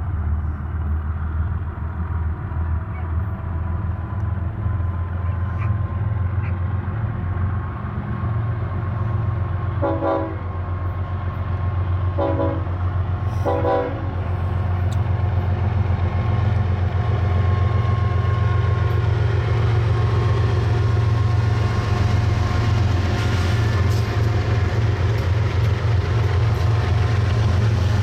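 BNSF freight diesel locomotives pulling a double-stack container train, their engines a steady low drone that grows louder as they pass about halfway through. The locomotive horn sounds three short blasts about a third of the way in.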